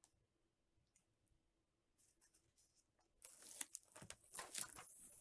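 Near silence, then about three seconds in the paper pages of a picture book rustle and crinkle as it is handled and the page is turned.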